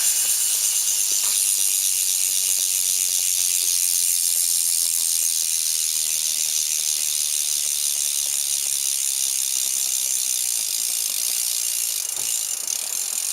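BMX rear hub's freewheel clicking rapidly as the back wheel spins, the fast pawl clicks merging into a steady buzzing rattle that fades slightly toward the end.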